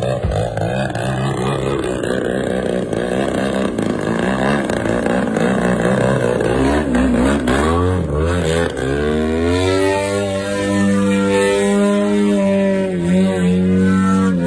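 Propeller-driven RC model airplane's motor and propeller buzzing through low aerobatic passes, the pitch sliding up and down as it passes and turns, then settling into a steady drone about ten seconds in as it flies off.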